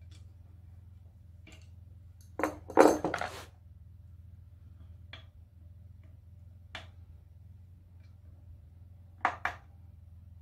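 Metal clinking and tapping as the locked nuts and parts on the valve stem of an antique International Type M engine's cylinder head are handled: a cluster of loud clinks about two and a half seconds in, single light clicks after, and a quick pair near the end, over a low steady hum.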